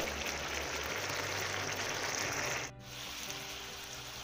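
Chicken sizzling in a pan of thickening Coca-Cola and soy sauce, a steady hiss that stops suddenly about two and a half seconds in; faint music follows.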